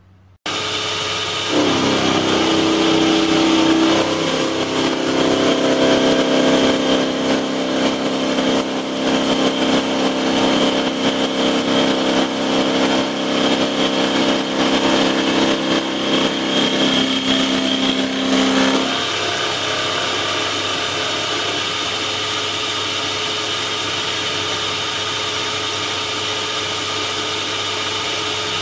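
Small bench lathe running a face mill at 1900 RPM, cutting across a cast aluminium U-section. The machine starts about half a second in, and the cut carries a steady ringing whine for about seventeen seconds. Then the cut ends and the spindle keeps spinning freely, a little quieter.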